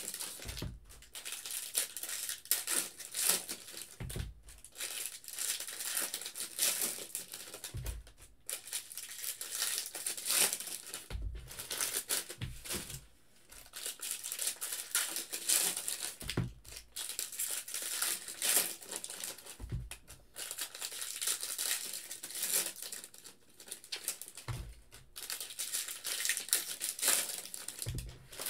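Foil wrappers of 2020 Bowman Draft Jumbo trading-card packs being torn open and crinkled by hand, in repeated rustling bursts. A few dull knocks come in between, as cards or packs are set down on the table.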